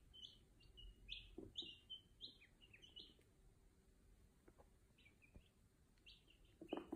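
Chicks and ducklings a few days old peeping faintly: short, high peeps, several a second at first, thinning out after about three seconds and picking up again near the end.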